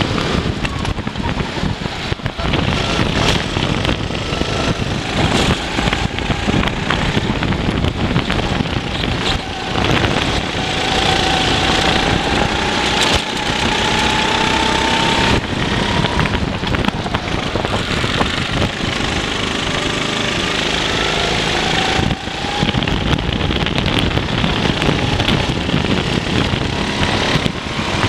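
Racing kart engine at full throttle, heard from the driver's seat, its pitch climbing along the straights and dropping back into the corners, over a loud rushing noise.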